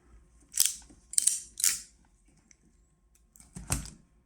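RJ45 pass-through crimping tool clicking as it is squeezed on a connector, crimping it and shearing off the wire ends that stick out the front. Four short, sharp clicks: three close together in the first two seconds and a heavier one near the end.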